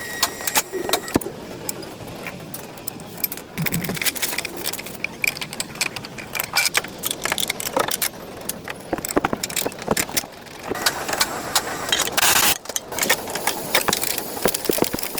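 Irregular metallic clinking and clattering of tools and parts being handled during a water pump repair, with a brief louder burst of noise near the end.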